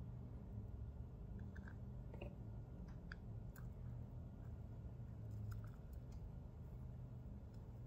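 Soldering iron melting solder along the copper-foiled seams of a stained-glass piece, with faint scattered crackles and ticks. A low steady rumble runs underneath.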